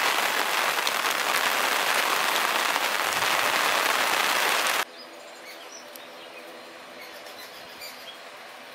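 Heavy rain pattering on an umbrella close overhead, a loud even hiss that cuts off abruptly about halfway through. A much quieter outdoor scene follows, with faint short chirps and a low steady hum.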